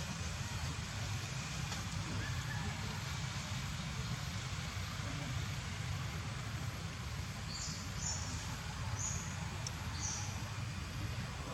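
Steady background noise, a low rumble with hiss, with a few short high chirps about two thirds of the way through.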